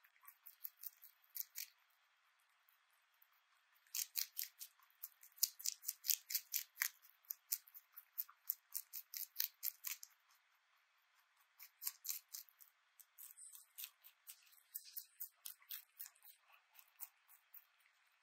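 A rabbit chewing crunchy vegetable close to the microphone: rapid crisp crunches, several a second, in three runs with short pauses between.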